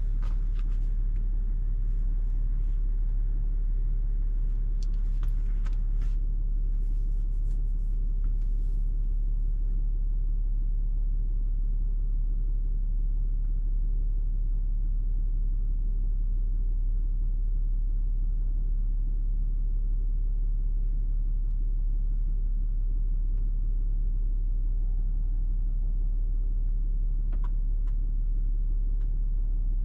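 Steady low rumble and hum of a car engine idling, with a few faint clicks a few seconds in.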